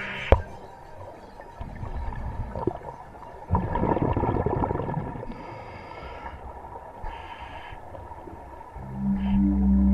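Underwater sound on a scuba dive: gurgling bubbles and hissing, with a sharp click just after the start. A low steady hum with overtones begins near the end.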